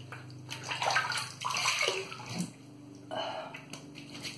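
Water splashing at a bathroom sink as hands rinse leftover shaving lather off the face and neck, in two bouts: a longer one about half a second in and a short one about three seconds in.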